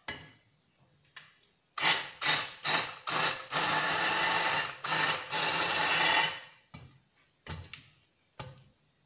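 Hand-held immersion blender puréeing cooked vegetable and chicken soup in an aluminium pot. It starts with about four short pulses, then runs for two stretches of a second or so each, then gives three short pulses near the end.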